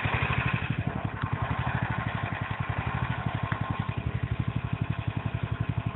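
Snowmobile engine idling steadily with a fast, even putter.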